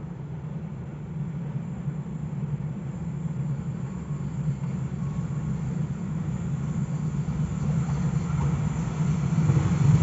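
Diesel locomotive hauling a passenger train as it approaches on a curve: a steady low engine drone and rail rumble that grows gradually louder.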